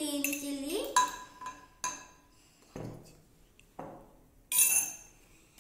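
Metal spoon clinking and tapping against glass bowls, several sharp taps about a second apart, the loudest a ringing clink about four and a half seconds in.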